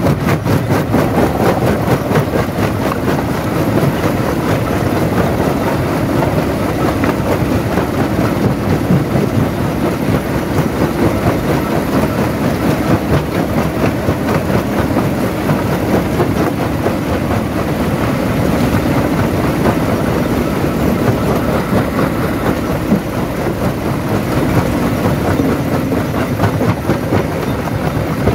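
Jaw crusher running and crushing stone: a steady, loud rumble with dense, rapid rattling and clatter.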